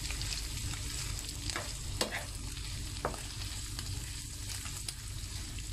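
Chopped grilled chicken frying and sizzling in a pan over high heat while a wooden spoon stirs and scrapes it. A few sharp pops come as the fat spatters from the chicken skin.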